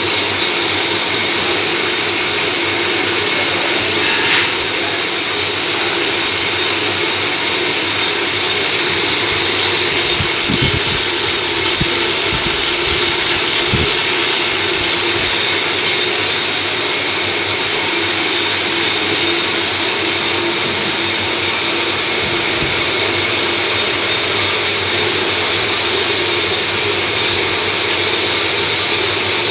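Metal lathe running at speed, turning a steel pump part against the cutting tool: a steady machine whirr with a bright high hiss. A few brief low knocks come about ten to fourteen seconds in.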